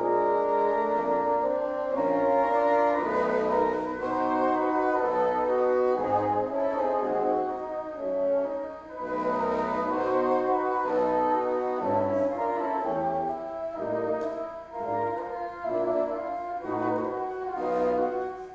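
Bassoon quartet playing live: four bassoons in harmony, the upper parts moving note to note over a bass line of short, separate low notes.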